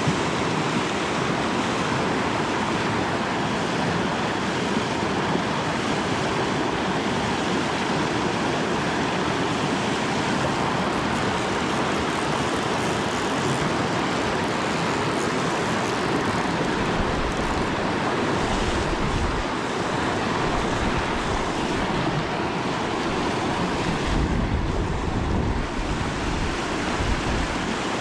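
Whitewater river rapids rushing steadily, a dense, even roar of churning water.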